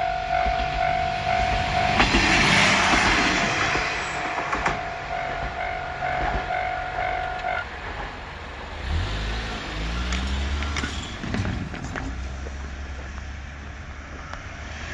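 Japanese railway level-crossing warning bell ringing with repeated electronic tones over the noise of a passing train, then cutting off about seven and a half seconds in. After it stops, a low engine hum rises and falls.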